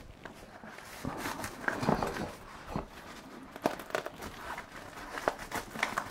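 Hands pressing the hook-and-loop (Velcro) edge of a softbox's fabric outer diffuser shut, with the diffuser cloth rustling, heard as a string of soft, irregular crackles and taps.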